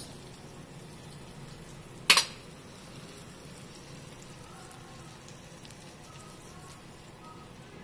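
A single sharp clack about two seconds in, like a metal hand lemon squeezer set down on a plate, over a steady faint hiss.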